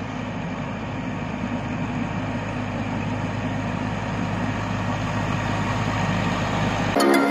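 Tractor engine running with the towed Husar air-blast sprayer's fan blowing spray: a steady hum under a broad rush of air, growing louder as the rig approaches.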